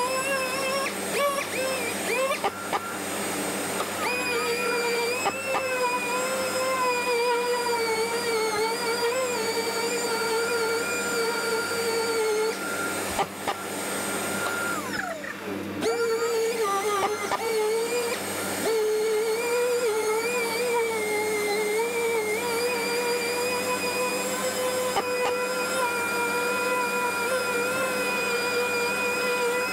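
Pneumatic random orbital sander with dust extraction running against a car door, sanding body filler; its whine wavers in pitch as pressure on the pad changes. About halfway it is briefly eased off, the pitch dropping and climbing again before steady sanding resumes.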